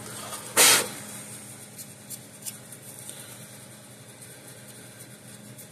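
Handling noise from a circuit board being turned over on a workbench: one short rustle about half a second in, then a few faint light ticks over a steady low hum.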